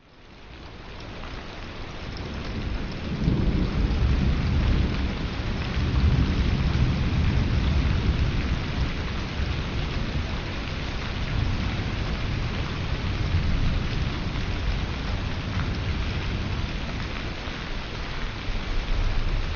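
Steady rain with low rolling thunder swelling beneath it, strongest a few seconds in and again around six seconds. The sound fades in over the first few seconds.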